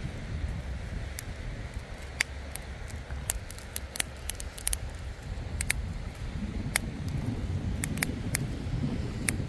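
Low rumble of wind on the microphone, with scattered sharp clicks and ticks at irregular intervals.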